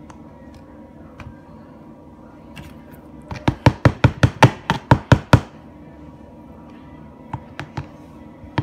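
A fork knocking hard against a plastic jar while slime is stirred: a quick run of about a dozen sharp knocks around the middle, then a few single knocks near the end.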